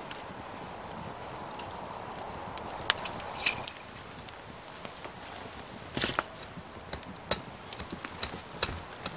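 Irregular light knocks and crackles, with two louder, brief rustling or scraping sounds about three and a half and six seconds in.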